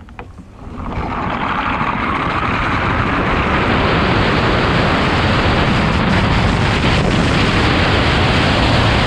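Rush of wind on a ski jumper's helmet-mounted GoPro Hero 8, with the skis running in the summer inrun track: it builds about a second in as he picks up speed, then stays steady and loud through take-off and flight.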